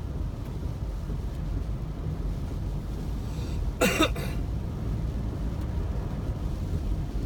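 Steady low rumble of a car driving on a wet road in heavy rain, heard from inside the cabin. About four seconds in, a person coughs once, briefly.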